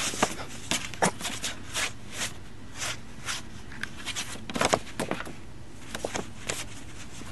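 Irregular short scratches, taps and rustles of a cat pawing at stiff poster board.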